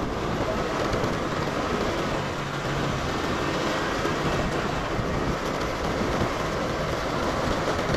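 Steady wind rush and road noise from a moving motor scooter, with its small engine running underneath.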